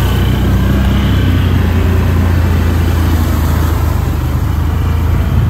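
ATV engines running steadily as the quads drive along the trail, a continuous low drone.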